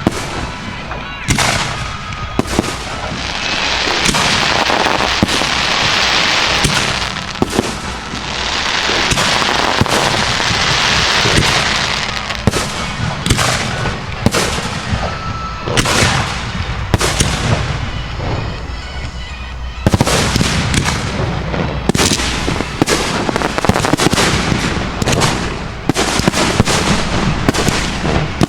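A fireworks display heard close to the firing site: shells and cakes firing and bursting as a string of sharp bangs. There are two longer swells of dense noise in the first half, and a denser barrage of rapid bangs from about two-thirds of the way through.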